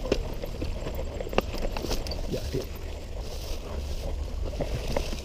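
Mountain bike rolling downhill on a dirt trail, with a steady rumble of wind buffeting the camera microphone and scattered clicks and rattles from the bike over the rough ground.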